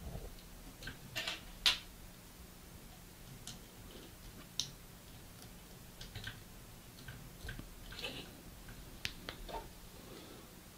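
Plastic model kit parts being handled and pressed together, giving a scattered series of light clicks and taps, the sharpest about a second and a half in.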